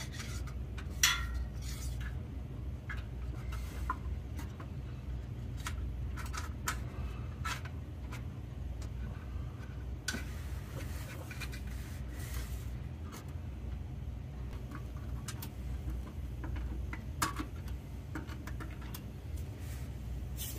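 Scattered light metallic clinks and taps from hand tools and parts being handled under a car while a crossmember is lined up for its bolt. A steady low hum sits underneath.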